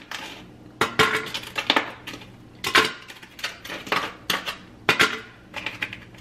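Ice cubes being dropped into a bottle, each landing with a sharp clink about once a second.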